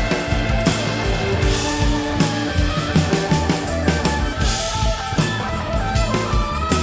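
Live rock band playing an instrumental passage: electric guitar, bass, keyboards and a drum kit keeping a steady beat with cymbal crashes.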